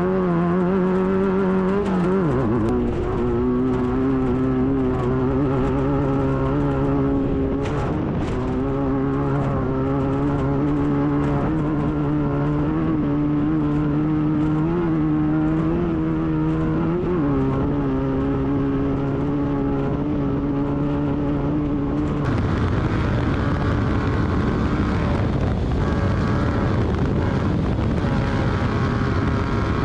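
Class 9 buggy's air-cooled Volkswagen engine running hard at a fairly steady speed. The pitch drops about two seconds in and again a little past halfway. About three-quarters of the way through, the engine tone gives way to a broad rushing noise.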